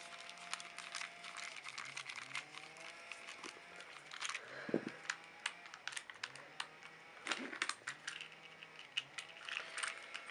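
Small plastic parts of a battery toy train clicking and tapping as it is handled and snapped back together, in quick irregular clicks with a couple of louder knocks. A faint hum runs underneath and dips every couple of seconds.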